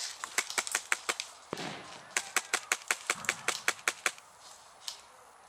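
Airsoft guns firing in quick strings of sharp snapping shots, a short string at the start and a longer one about two seconds in.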